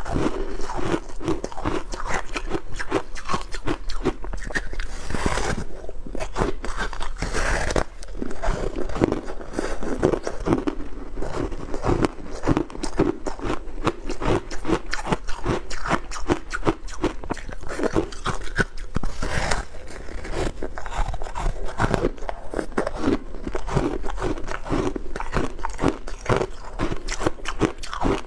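Powdery ice being bitten and chewed close to a clip-on microphone: a continuous run of soft, rapid crunches.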